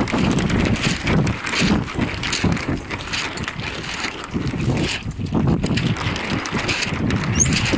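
Wind buffeting the microphone: an uneven low rumble and rush that swells and dips in gusts.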